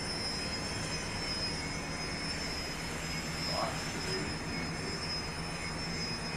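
Hauser 5SM jig grinder running: a steady machine hum with a thin high whine over it.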